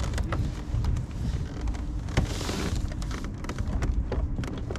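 Water splashing and lapping, with scattered clicks and a louder splash about two seconds in, over a steady low rumble.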